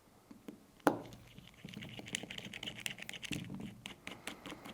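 Hex key turning a small hex head screw into the SSP2 airsoft pistol: quick small clicks and faint scraping of metal tool on screw and parts, with a sharper click about a second in.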